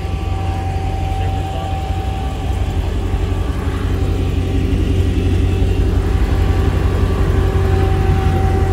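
A car engine idling steadily with a low, even drone, growing louder about halfway through.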